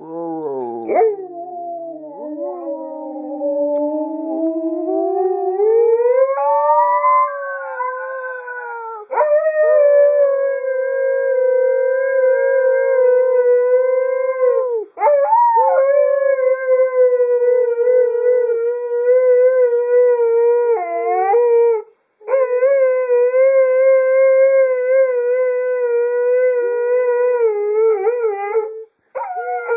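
A husky-type dog howling in a string of long notes. The first slides slowly up in pitch; the rest hold a steady high pitch, each broken only by a quick breath.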